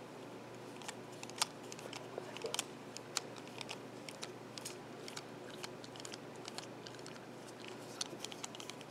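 Faint, irregular small clicks and ticks of a precision screwdriver working a tiny screw loose in a drone's plastic arm, with fingers handling the part.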